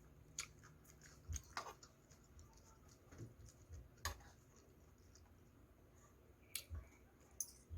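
Faint chewing and mouth sounds of a person eating sticky rice, with a few scattered soft clicks and smacks.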